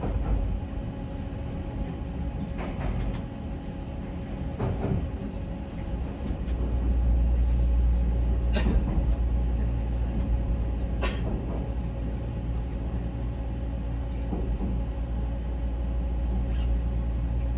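Odakyu Romancecar electric train heard from inside the front car as it rolls slowly along the terminal platform: a steady low running rumble that grows louder about six seconds in, with a few brief sharp sounds from the running gear.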